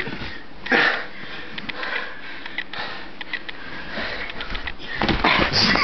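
Heavy, sniffing breaths close to the microphone, with rustling and small knocks from people wrestling; a louder rush of rustling comes near the end.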